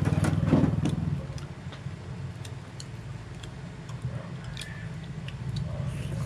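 Crunching of fried crickets being chewed, heard as scattered sharp clicks. Under it runs a steady low motor hum, loudest in the first second.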